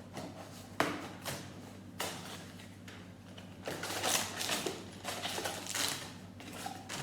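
A cardboard Lego set box being opened by hand. Sharp snaps about one and two seconds in, then crackly rustling of the card and the packaging inside from about four to six seconds.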